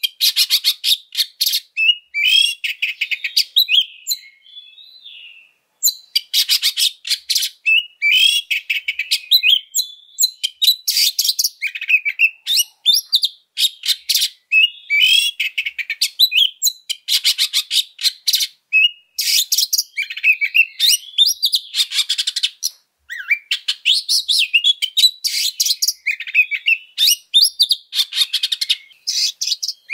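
Oriental magpie-robin singing a harsh, fast fighting song: rapid rattling, scratchy chatter mixed with short whistled phrases. It comes in dense bursts with brief gaps, the longest about four seconds in.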